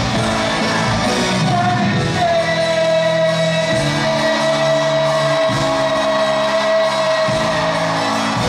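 Live pop-rock concert music echoing in a large arena: the band plays on while a long high note is held for about five seconds, with singing and crowd shouts over it.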